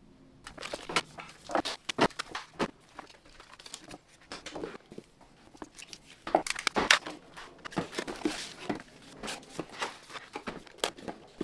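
Cardboard boxes and paper packaging being handled and unpacked by hand: irregular rustling, scraping and light knocks of cardboard, with a louder cluster about six to seven seconds in.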